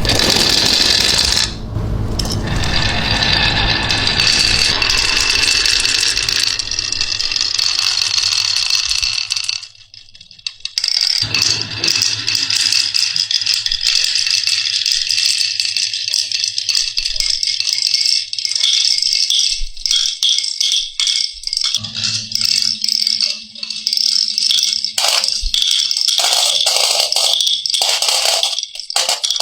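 Many marbles rolling and clattering down a marble run track, a dense rattle of small clicks, with a short lull about ten seconds in.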